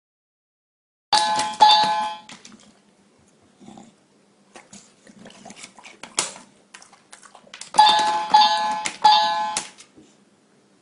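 Electronic chime from a push-button bell, rung in two quick strokes about a second in and three more near the end, with faint clicks and one sharp click in between.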